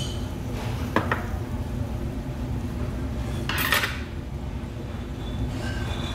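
Metal chopsticks clicking and clattering against bowls and dishes on a table, with a louder short clatter a little past the middle, over a steady low background hum.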